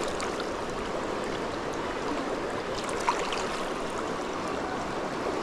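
Fast-flowing stream water rushing steadily around the legs of someone wading in it, with one small click about three seconds in.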